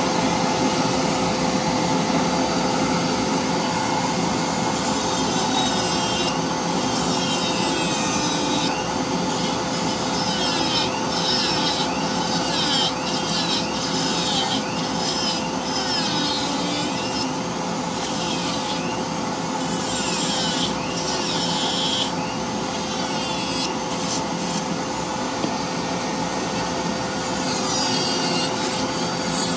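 A high-speed rotary tool burr grinds and rasps into a cedar block in repeated passes, starting a few seconds in. A dust collector runs with a steady hum underneath.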